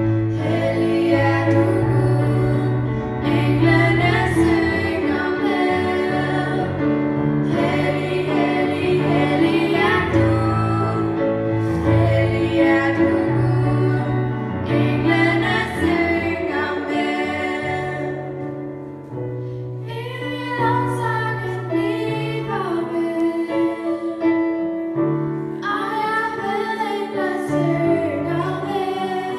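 Two girls singing a Danish song together into handheld microphones, over an instrumental accompaniment with sustained bass notes.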